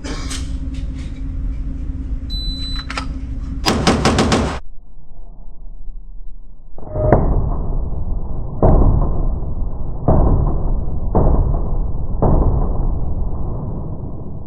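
Gunshots from a stock 9mm Glock 19 with an unported barrel: a quick string of shots a little under four seconds in, then five shots slowed down, each a long, deep, muffled boom.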